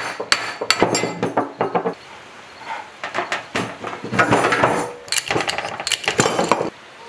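Irregular metal clanking and knocking as steel tools strike a generator's rusty shaft, pulley hub and rotor during disassembly, in two clusters of sharp clanks.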